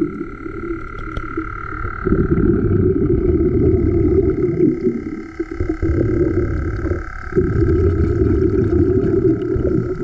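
Hookah diving air compressor running with a steady high whine over a heavy low rumble. The rumble drops away briefly about two seconds in and again for a couple of seconds past the middle.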